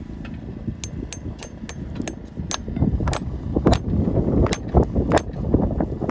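A farrier's hammer tapping on a steel horseshoe and its nails on a mule's hoof: about ten sharp metallic taps at an uneven pace.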